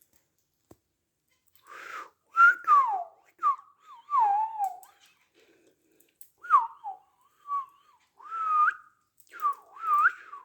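Pet birds whistling: a series of short, clear whistled notes that slide down and up in pitch, given in several phrases with short gaps.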